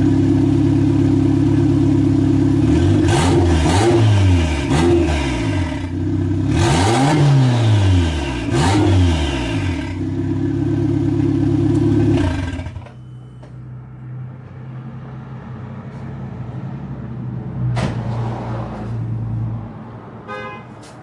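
Turbocharged Toyota 4E-FTE four-cylinder with a downpipe-only exhaust idling, then revved in two clusters of quick throttle blips that rise and fall in pitch. The loud running cuts off suddenly about two-thirds of the way through, leaving a quieter low hum.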